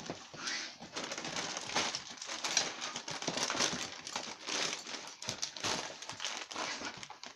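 Gift-wrapping paper crinkling and rustling with quick crackles as a dog tears and paws at a wrapped present.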